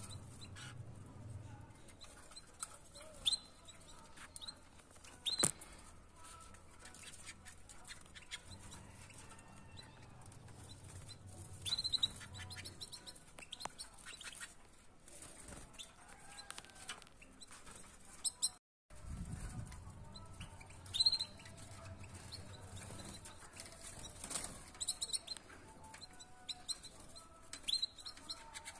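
White domestic canaries in an aviary: scattered short chirps and calls, with wing flutters and sharp little clicks as the birds move about the wire mesh.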